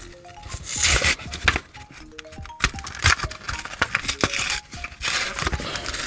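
Foil trading-card booster pack wrapper crinkling and tearing open in gloved hands, in several bursts, over soft background music.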